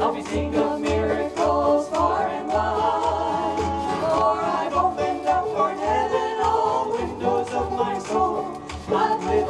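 Small acoustic band playing an upbeat gospel song: ukuleles strumming over a steady bass beat, with a melody line carried above.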